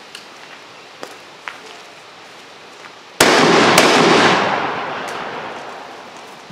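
Stoeger Coach Gun, a 12-gauge side-by-side shotgun, fired twice: both barrels, about half a second apart, with a long echo rolling away afterwards. A few light clicks of the gun being handled come before the shots.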